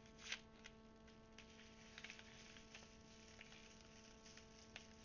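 Near silence: a steady electrical hum with a few faint, scattered clicks and rustles, typical of a small parcel being handled and opened.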